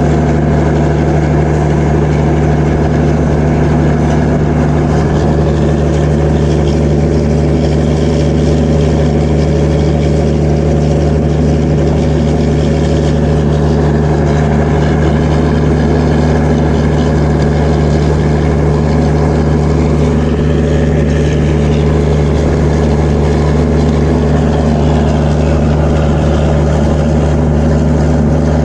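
Diesel generator sets in an Indian Railways train's power car running steadily: a deep, even hum with a constant engine drone that does not change in pitch or level.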